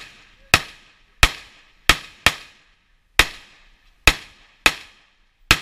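Pistol shots fired one at a time during a 3-gun stage, eight in all, unevenly spaced about half a second to a second apart. Each shot has a short ringing tail.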